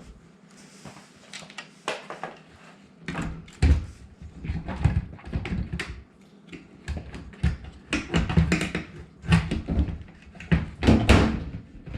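Irregular knocking, clunking and rattling of dishwasher parts being handled during repair, starting about three seconds in and going on in uneven bursts.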